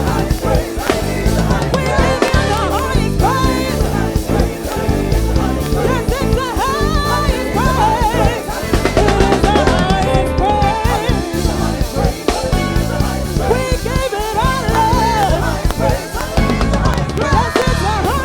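Gospel praise-and-worship music: voices singing over a band, with a drum kit playing a steady groove of kick, snare and rimshots.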